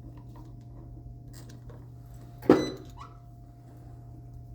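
A steady low hum with a few faint light clicks, and one short, loud voice-like sound with a falling pitch about two and a half seconds in.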